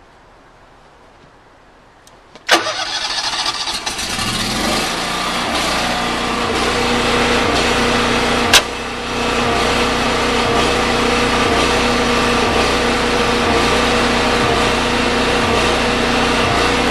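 Kohler 14 kW natural-gas standby generator starting: about two and a half seconds in its engine cranks and catches, speeds up over a couple of seconds, then runs at a steady speed. A single sharp clunk about eight and a half seconds in is the automatic transfer switch moving the house onto generator power.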